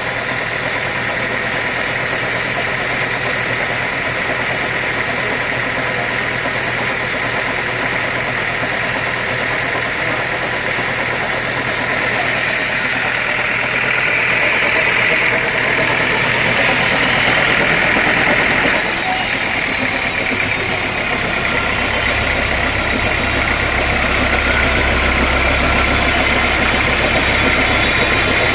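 Sawmill machinery running steadily, a continuous mechanical drone with a high whine that grows stronger partway through. About nineteen seconds in the sound changes abruptly and a low hum comes in.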